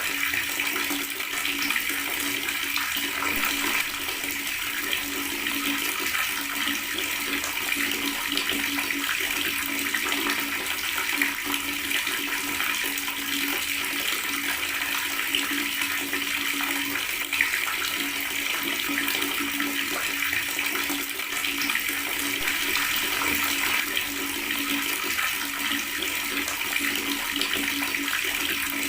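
Water running steadily from a tap in a continuous gurgling stream.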